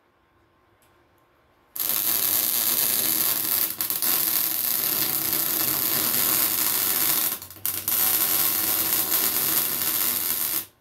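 Welding on a cracked ATV exhaust: the arc gives a loud, steady hiss that starts abruptly about two seconds in, breaks off briefly about seven seconds in, then runs again and cuts off just before the end.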